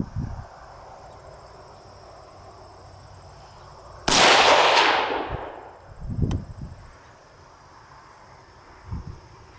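A single shot from a Del-ton AR-15 rifle about four seconds in, its loud report trailing off over about a second and a half. Insects chirr steadily throughout, and there are a few brief low thuds.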